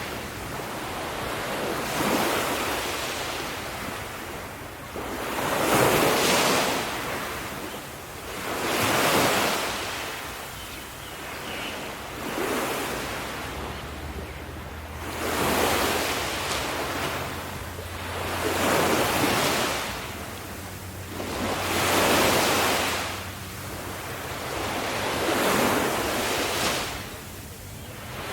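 Ocean waves breaking and washing up on the shore, the surf swelling and ebbing every three to four seconds, with some wind on the microphone. A faint low hum sits under the surf through the middle stretch.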